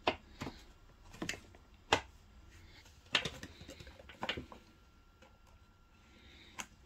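Hard plastic parts of a Tefal steam generator iron's housing clicking and knocking as they are handled and pressed together: about seven sharp clicks spread out, the loudest about two seconds in.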